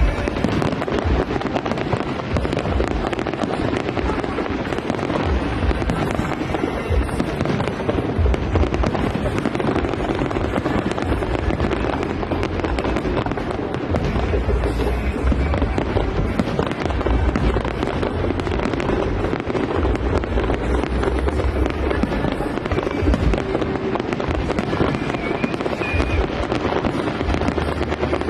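Fireworks display: aerial shells bursting one after another with no break, deep booms piling on top of each other.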